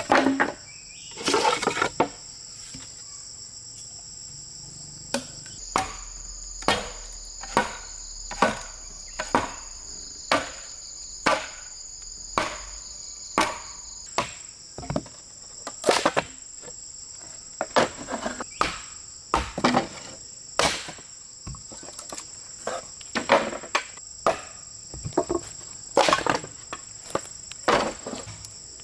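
Regular blows of a tool striking bamboo, chopping or hammering at about one blow a second, over a steady high-pitched chorus of rainforest insects.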